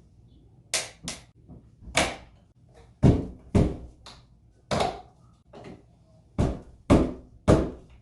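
A series of about nine sharp knocks and thuds, irregularly spaced and some in quick pairs, from a Dodge Magnum's rear spoiler being yanked and struck against the liftgate while it is held on by adhesive rather than clips.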